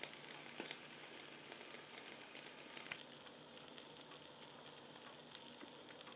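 Chicken breasts sizzling faintly on a hot George Foreman electric grill plate: a steady hiss with scattered small crackles and pops.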